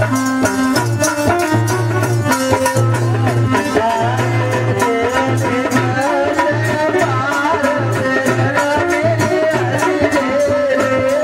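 Instrumental interlude of a Hindi devotional song: a fast, even drum beat in the tabla/dholak style under sustained instrumental tones. A wavering melody line comes in a few seconds in.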